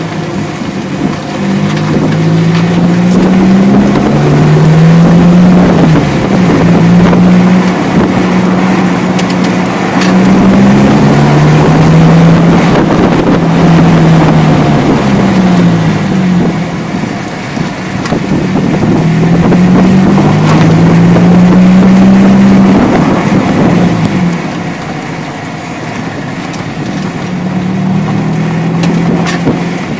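Ford Focus 2 driving, its engine note climbing and dropping back again and again as it runs through the gears, over road and wind noise. Short metallic knocks and rattles come through repeatedly, the rear-end knock that the owner traced to a loose rear brake pad.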